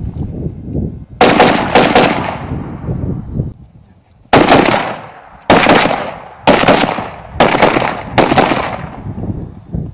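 Gunshots at a shooting range, fired in quick succession, mostly in close pairs, each with a long echoing tail. Three shots come in the first two seconds, then a lull of about a second, then pairs about a second apart.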